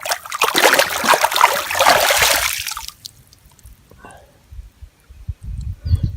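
Water splashing and sloshing as sandals are swished through swimming-pool water to wash them, stopping about three seconds in; a few soft low knocks follow.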